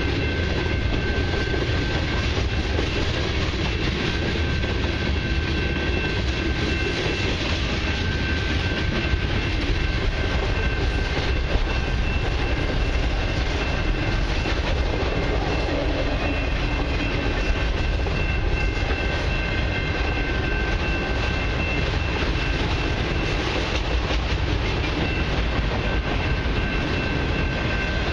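Freight train cars, tank cars and then autoracks, rolling steadily past a level crossing: steel wheels clatter over the rail joints over a continuous low rumble.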